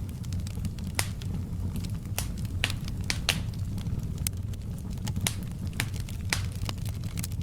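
Fire in a fireplace crackling, with irregular sharp pops, some louder than others, over a steady low rumble.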